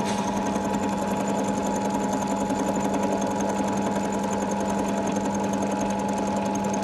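Milling machine running steadily while milling a taper: a constant motor hum with a rapid, even ticking over it.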